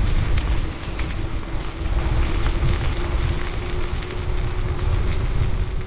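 Wind buffeting the microphone as it moves along a street, with a low, uneven rumble of road noise and a faint steady tone underneath.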